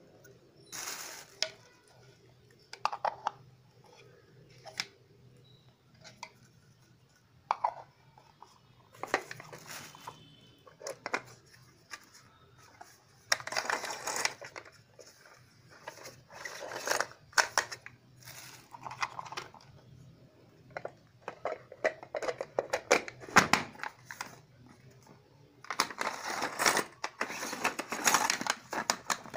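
Small plastic pull-cord vegetable chopper being handled: scattered clicks and clatter of its plastic parts, with several longer noisy stretches as its cord is drawn out of the lid.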